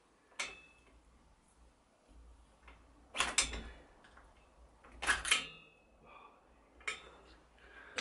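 Metal clinks and scrapes as a HiteRite dropper clamp and its shim are worked onto a bicycle seat post, with a screwdriver pushing the tight shim down. There are four short, sharp clinks with brief ringing; the loudest come about three and five seconds in.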